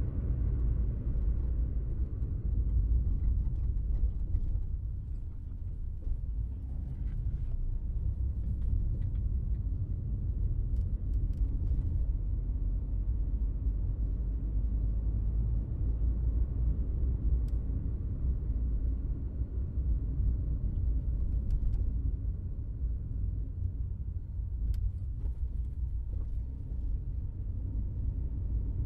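Steady low road and engine rumble heard inside a car's cabin while driving, with occasional faint small clicks and rattles.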